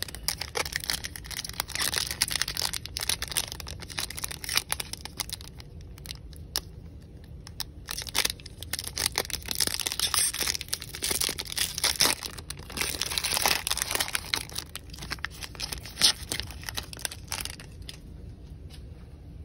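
Foil Panini Prizm basketball card pack being torn open and crinkled by hand: a long run of crackling and tearing with a short lull partway through and a sharp snap near the end, before it dies away.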